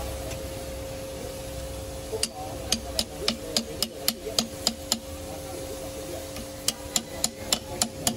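Hammer striking a ribbed steel bar held against the end of a large log: a run of about ten sharp metallic strikes, roughly three a second, starting about two seconds in, then a pause and a second run of about six strikes near the end. A steady hum runs underneath.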